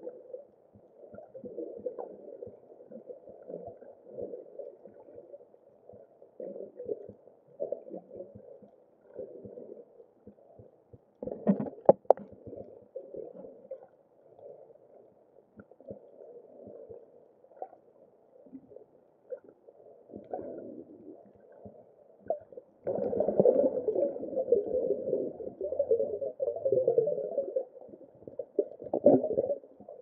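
Muffled underwater sound heard through a camera housing: a diver's exhaled bubbles gurgling in irregular puffs, with a sharp knock about 11 seconds in and a longer, louder rush of bubbles about three-quarters of the way through.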